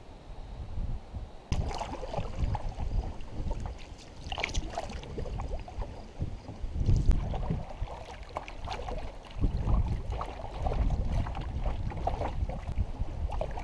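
Water slapping and splashing against a canoe's hull on a choppy river, with wind buffeting the microphone. It starts about a second and a half in, after a quieter stretch of wind.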